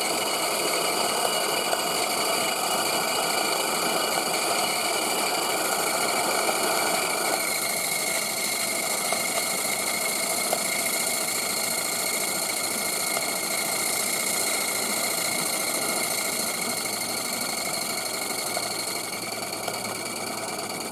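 Gas-fired 3/4-inch-scale Maxitrak Allchin model steam traction engine running stationary, its burner roaring steadily under the rapid beat of the engine. It is spitting excess water from an overfilled boiler, and the hiss eases about seven seconds in.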